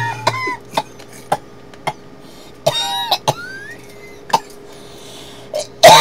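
A person coughing in several short fits, the loudest fit near the end, with a few sharp clicks in between.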